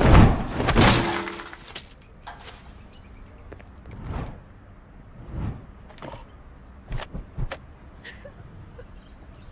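Edited sound effects: a loud crash right at the start, then quieter whooshes and a few sharp clicks.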